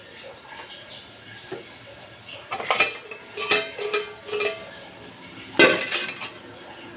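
Stainless steel pot clanking and knocking as cooked noodles and their water are tipped out of it into a plastic colander to drain. A cluster of clanks with a brief ring comes in the middle, and the loudest clank near the end.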